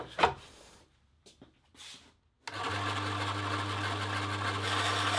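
Small rebuilt benchtop bandsaw switched on about two and a half seconds in, then running steadily: an electric motor hum with the whir of the blade and wheels. Before it starts there are only a few light handling clicks.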